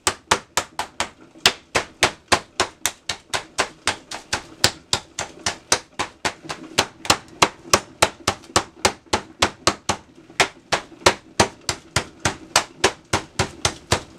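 Meat tenderizer mallet pounding pork chops through plastic wrap on a cutting board: rapid, steady blows, about three to four a second, flattening the meat.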